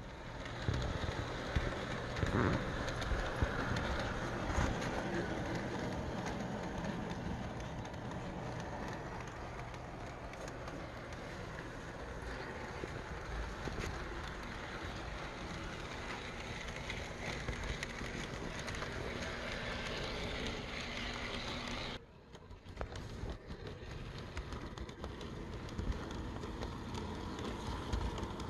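OO gauge model train running on the layout's track during shunting, a steady whirr of motor and wheels with small clicks. The sound drops off suddenly about 22 seconds in, then comes back.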